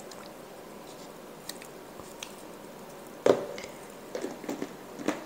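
Faint scraping and light clicks of a plastic spatula scooping mayonnaise from a jar into a glass mixing bowl, with one sharper knock about three seconds in, followed by a few lighter taps.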